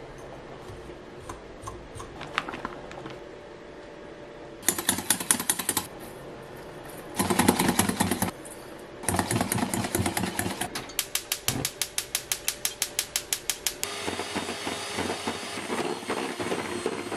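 Wire whisk beating egg yolks in a stainless steel bowl: several bursts of fast, even clinking strokes against the metal. About 14 seconds in, an electric hand mixer takes over, its beaters running steadily in the bowl.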